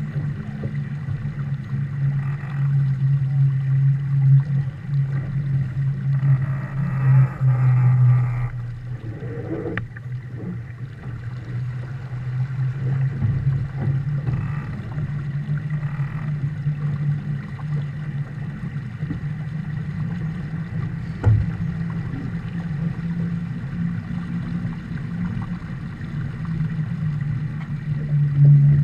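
Steady low rumble of wind and water rushing past a Viper 640 sportboat sailing under way, heard through a camera fixed on its deck, with a couple of sharp knocks.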